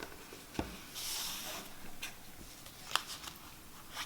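Playing cards being handled: a sharp click, then a brief sliding rustle about a second in, then another click near the three-second mark.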